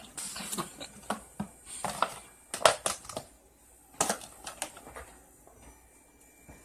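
Fruit pieces (orange slices and strawberries) being dropped by hand into an empty plastic drink cooler: irregular knocks and clatters on the plastic, a few of them sharp, thinning out to faint ticks after about five seconds.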